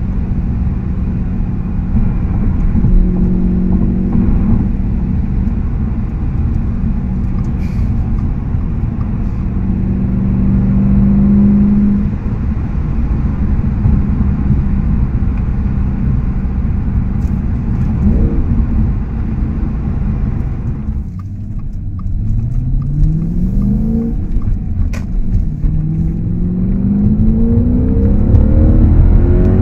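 Audi S5 with an AWE Tuning aftermarket exhaust, heard from inside the cabin over road noise, cruising with a steady exhaust drone. In the last third it accelerates hard, the engine note climbing twice as it pulls through the gears.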